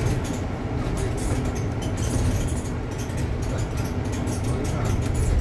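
Inside a moving London double-decker bus on the upper deck: a steady low drive hum with frequent light clicks and rattles from the body.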